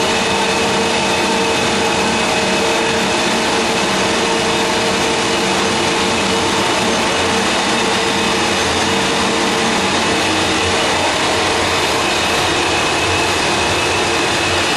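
Steady noise of a running pilot-scale fourdrinier paper machine: a constant din with several steady tones held over it, no change in level.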